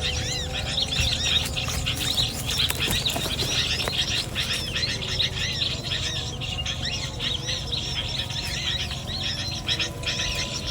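A busy chatter of small birds: quick, high, arching chirps repeated almost without pause.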